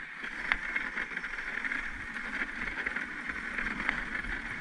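Dog sled runners sliding over packed snow: a steady hissing scrape, with a couple of light clicks.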